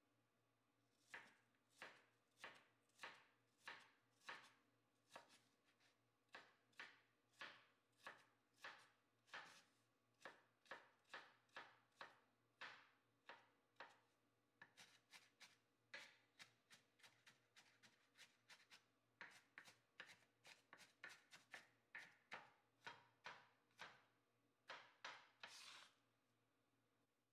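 Chef's knife chopping onion on a wooden cutting board. Sharp knocks about two a second, quickening to a faster run in the middle, with a quick flurry near the end before they stop.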